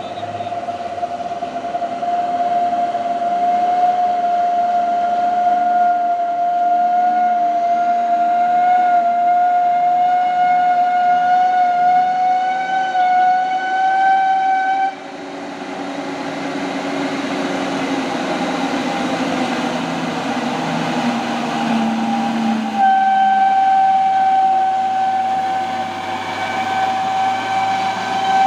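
Heavy truck hauling an excavator labouring up a steep climb with a loud, steady high-pitched whine over its engine, the strange sound that stands out. The whine cuts off abruptly about halfway through while a lower engine note rises for several seconds, then the whine comes back.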